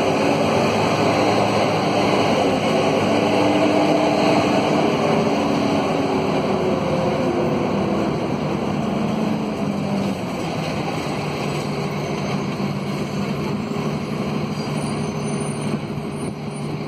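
Scania K230UB city bus heard from inside the cabin: its Scania DC9 five-cylinder diesel running with the radiator fan howling. The howl rises and falls in pitch over the first several seconds, then settles into a steadier, lower hum about ten seconds in.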